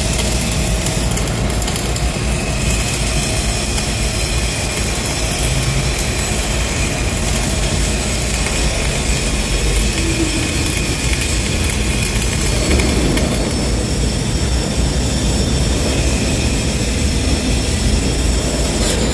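Flux-cored arc welding on thin steel plate: a steady, dense crackle and hiss from the arc, over a steady low hum.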